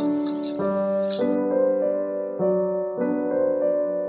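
Background piano music, its notes changing in a steady pulse about every half second.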